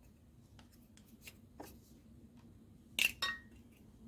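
Light clicking and handling of a car's radiator-fan resistor, its plastic housing and wiring, as the old part is worked apart. Two sharp clicks stand out about three seconds in, the second with a short faint ring.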